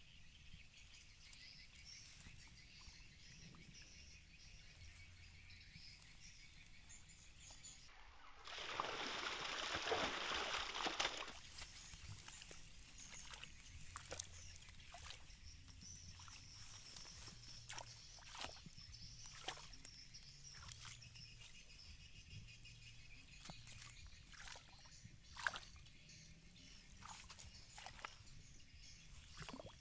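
Faint outdoor ambience by a marshy field, with about three seconds of water splashing and sloshing some eight seconds in. After that come scattered small knocks and rustles as hands work in wet grass and shallow water around a pipe fish trap.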